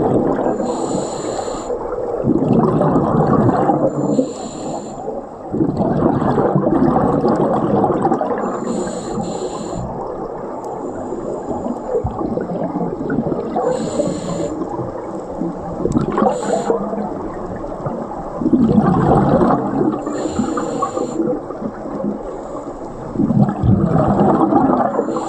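Scuba diver breathing through a regulator underwater. A short hissing inhale comes every few seconds, each followed by a long rush of exhaled bubbles.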